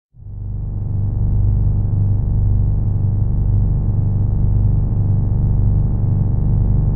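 Zeppelin sound effect: a steady, low engine drone with a faint regular pulse that fades in over the first second and holds unchanged.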